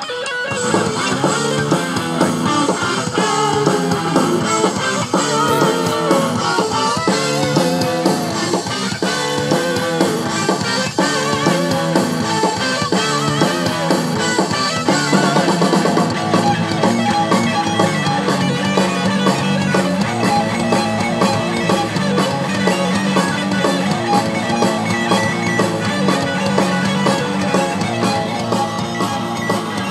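Music with guitar and drums, coming in abruptly and playing steadily.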